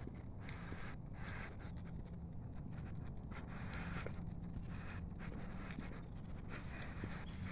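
Footsteps crunching on a gravel path, a step about every second at walking pace.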